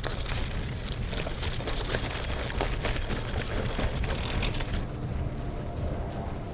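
Wind rumbling on the microphone of a bicycle being ridden, with scattered clicks and rattles from the bike. A faint steady hum comes in near the end.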